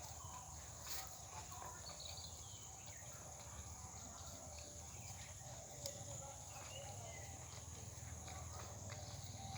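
Dog gnawing a piece of coconut shell, with a few sharp cracks about a second in and again near six seconds, over a steady high insect drone.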